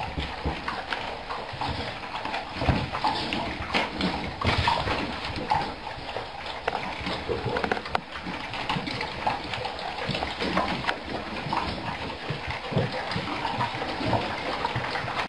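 A crowd of dogs eating at once from metal food bowls: a continuous, irregular mix of chewing, slurping and bowls clattering.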